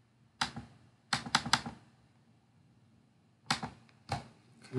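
Computer mouse clicking on the keys of an on-screen calculator: one click, a quick run of about four, then three more single clicks spaced out.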